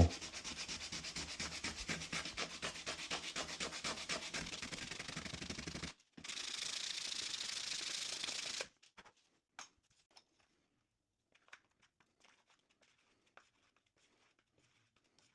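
Rough sandpaper rubbing back and forth over a hardened filler patch, about three or four strokes a second, sanding the set filler down. After a brief pause near six seconds it goes on as steadier, unbroken rubbing and stops a little after eight seconds, leaving only a few faint ticks.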